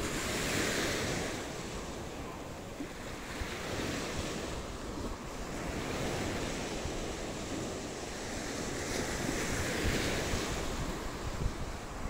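Sea waves breaking and washing up a sandy beach, surging three times about every four to five seconds, with wind buffeting the microphone.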